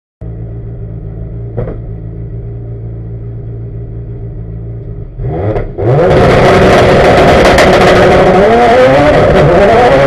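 Turbocharged Ford Focus race car engine held at a steady idle on the start line, blipped briefly about five seconds in, then launched at full throttle about six seconds in, revs rising repeatedly as it accelerates hard through the gears.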